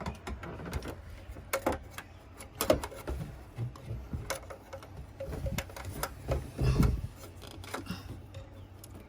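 Irregular clicks and light knocks of an oil filter wrench being worked onto a jet ski's oil filter.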